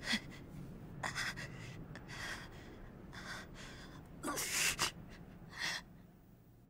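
A person panting hard: a series of ragged gasping breaths, roughly one a second, out of breath.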